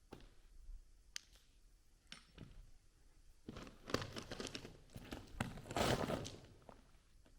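Footsteps crunching on the gravel of the tunnel floor: a few light scuffs at first, then two louder stretches of crunching about halfway through and again a little later.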